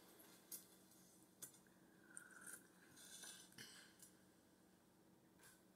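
Near silence with a few faint clinks and scrapes of a spoon and fork against a ceramic soup bowl.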